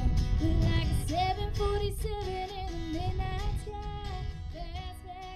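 A woman singing a pop song over instrumental backing, fading out.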